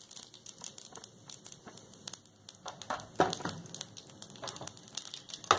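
Cumin seeds crackling faintly in oil in a frying pan, with a few louder knocks about three seconds in and again near the end.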